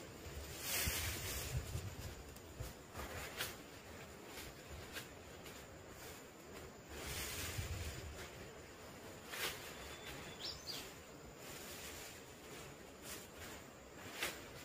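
Large fresh leaves rustling and twigs clicking as they are handled and hung over the pole frame of a small leaf shelter, in two longer spells of rustling with a few sharp clicks between.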